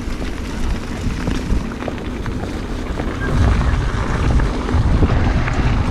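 Wind buffeting the microphone while riding a mountain bike, with scattered clicks and rattles, growing louder about three seconds in.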